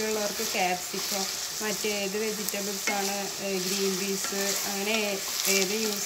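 Chopped onions sizzling in hot oil in an enamel pot, early in frying while still pale, stirred with a wooden spatula scraping through them. A wavering pitched sound comes and goes in short bursts over the sizzle.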